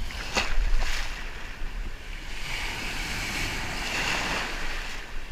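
Surf breaking and washing in shallow water, with a louder surge about a second in and a hissing rush of water after it. Wind buffets the microphone with a low rumble.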